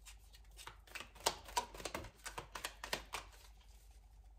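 A small deck of heart oracle cards being shuffled by hand: a run of irregular light card clicks and slaps, several a second.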